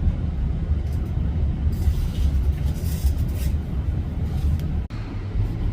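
Low steady rumble with faint knocks and rustles as a handheld camera is lowered and repositioned over the workbench, broken by a brief dropout near the end.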